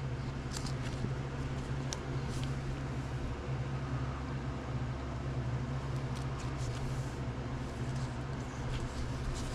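Steady low mechanical hum in a small room, with scattered faint clicks and light taps of trading cards and rigid plastic card holders being handled and stacked on a tabletop with gloved hands.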